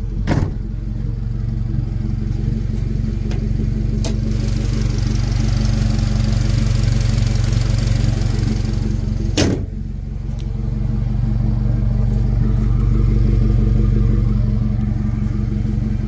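Turbocharged Honda Element's K24 inline-four engine running under throttle. A hiss builds as the turbo spools, and twice, just after the start and again about nine and a half seconds in, a brief sharp burst of turbo flutter sounds as the throttle closes. The engine then builds up again.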